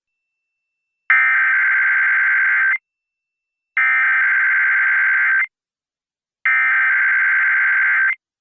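Emergency Alert System SAME digital data bursts, the encoded header of a Required Weekly Test, sent over FM radio. There are three identical buzzing bursts of about 1.7 s each, a second apart.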